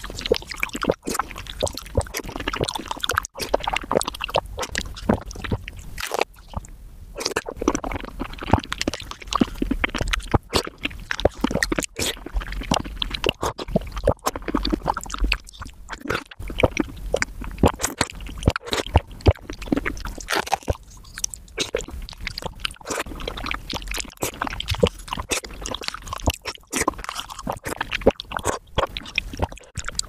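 Close-miked eating of soft fruit jelly: a spoon scraping on a ceramic bowl, with wet squishing, slurping and chewing of the jelly, packed into a quick, unbroken run of small clicks and squelches as if sped up.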